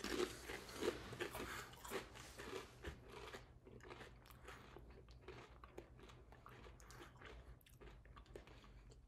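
Mouths crunching and chewing kettle-cooked dill pickle potato chips. Quick crisp crunches come thick in the first few seconds, then thin out into slower, softer chewing.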